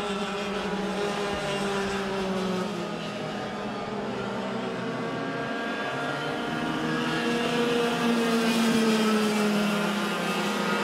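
Racing kart engines howling at high revs as the karts race through the corners. The pitch drops for a couple of seconds and then climbs again as they accelerate.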